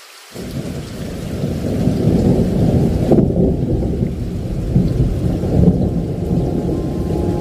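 Rain falling, then about a third of a second in a loud rumble of thunder breaks in suddenly and keeps rolling over the rain.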